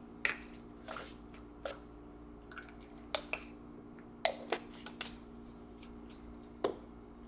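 Plastic vitamin pill bottle being handled, with about ten scattered short clicks and taps as the cap is worked and pills are tipped out. A steady low hum runs underneath.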